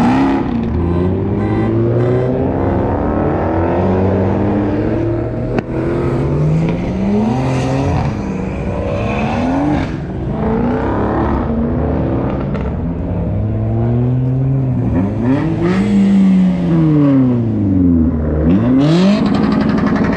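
A sports car engine revving hard and dropping back again and again as a car is driven around the lot, with several deep rev swoops near the end.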